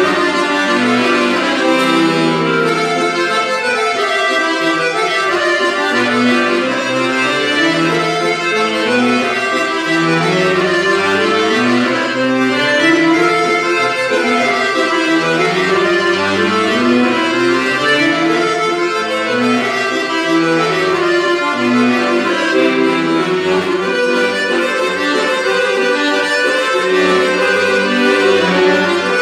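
Two piano accordions playing together in duet, a traditional kolo dance tune with a moving bass line under a continuous melody.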